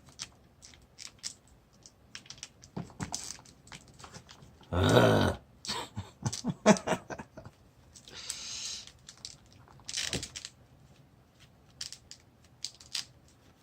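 Hands working a plastic action figure's arm into place: scattered small clicks, taps and rustles of handling, with one brief grunt-like voice sound about five seconds in.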